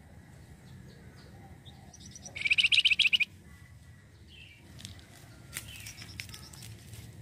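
Javan fulvetta (flamboyan) singing: a loud, rapid chattering trill of repeated high notes lasting about a second, with fainter short chirps before and after.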